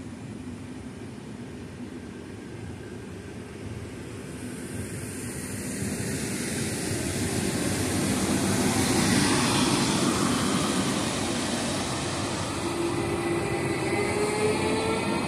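Frecciarossa high-speed train's coaches rolling past, a steady rumble of wheels on rail that swells louder toward the middle. A rising whine joins in near the end.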